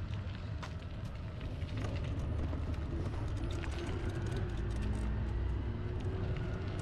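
Steady low vehicle rumble with many scattered clicks and rattles.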